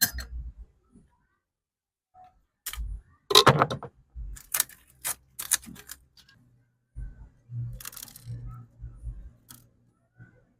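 Irregular clicks and knocks of objects being handled, the loudest about three and a half seconds in, with a faint low hum and dull thuds near the end.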